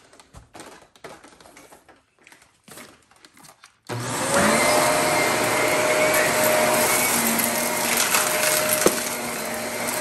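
Shark Navigator Lift-Away upright vacuum switched on for a test run about four seconds in, after some faint rustling and clicks. Its motor whine rises as it spins up, then it runs steadily with a loud rush of suction as it is pushed over a carpet mat.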